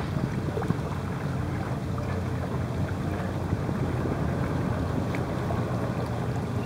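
Steady low engine drone of a boat under way, with wind and water rushing over the microphone.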